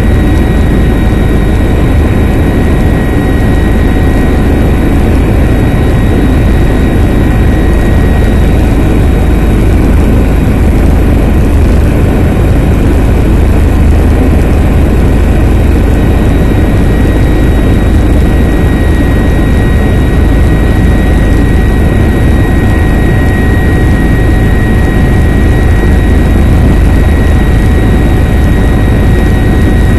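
Helicopter's rotor and turbine engine running: a loud, steady drone with a steady high whine over it.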